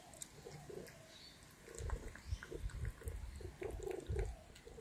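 Russian Blue cat eating wet cat food from a metal bowl: faint at first, then a run of wet chewing and biting sounds from about two seconds in.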